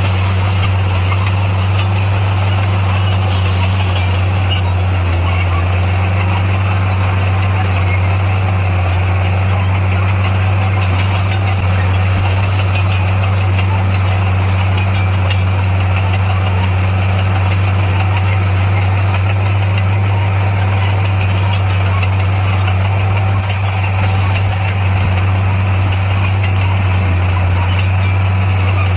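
Diesel engine of a heavy earthmoving machine running steadily: a constant low drone that holds one pitch throughout.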